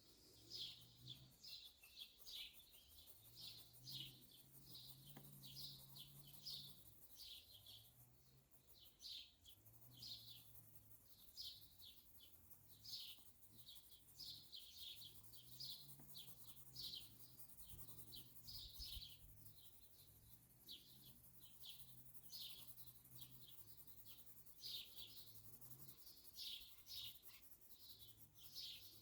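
Birds chirping: faint, short, high chirps repeated every half second or so.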